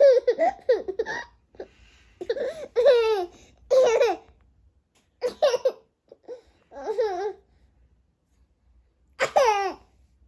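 A baby babbling and laughing in a series of short, high-pitched bursts with pauses between them.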